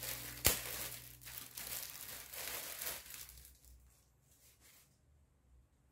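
Clear plastic bag around a T-shirt crinkling and tearing as it is pulled open, with one sharp click about half a second in. The rustling stops after about three seconds.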